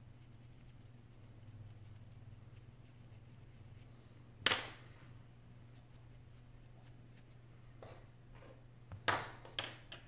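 Hands working small repair tools on iPhone 6 parts: faint fine scratching as a metal pick cleans the home button, then a sharp clack about halfway and another sharp knock with a couple of smaller clicks near the end as tools and parts are set down on the desk. A low steady electrical hum lies underneath.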